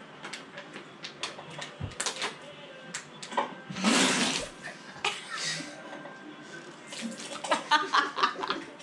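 A mouthful of water sprayed out in a spit-take: a short, loud hissing splatter about four seconds in, with a weaker spray about a second later.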